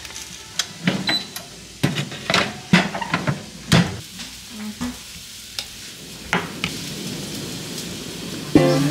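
Kitchen food-prep handling noises: an irregular string of short clicks, taps and knocks as seasoning containers and a bottle are handled over the counter.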